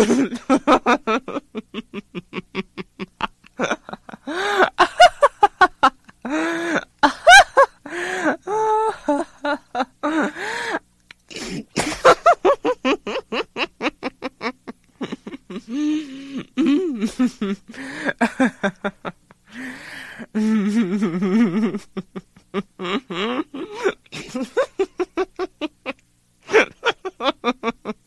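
A woman laughing hysterically and without letup: runs of rapid ha-ha pulses, several a second, broken by brief pauses for breath.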